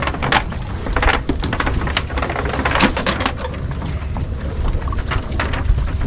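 Dozens of freshly netted small baitfish flopping on a fibreglass boat deck, a rapid, irregular pattering like rain, over a steady low rumble.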